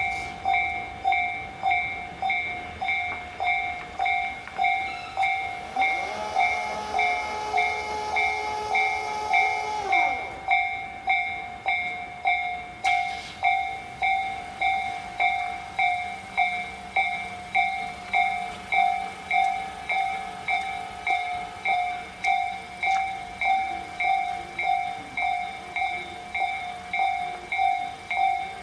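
Railway level-crossing warning alarm ringing on and on, evenly at about one and a half strikes a second, the electronic 'kan-kan' of a Japanese crossing with a train passing. From about six seconds in, a held horn-like chord sounds for some four seconds and falls in pitch as it stops.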